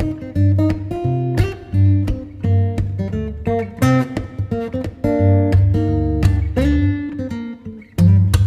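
Background music: acoustic guitar plucked and strummed over a steady bass line, with notes struck in a regular rhythm.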